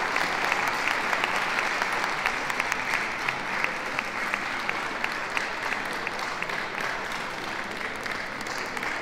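Audience applauding, many hands clapping together, tapering off over the last few seconds.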